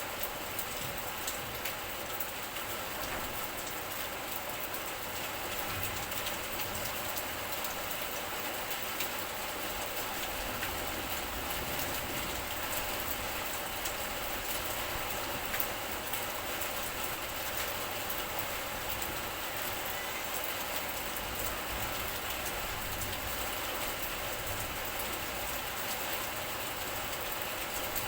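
Steady rain falling, a dense hiss of many small drop ticks, with an uneven low rumble underneath.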